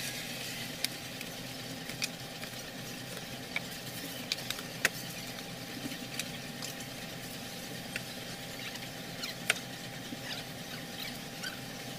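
Unpacking a boxed pair of speakers: the fabric bags and the carton rustle and crinkle, with a dozen or so sharp clicks and knocks as the speakers are handled, over a steady hiss.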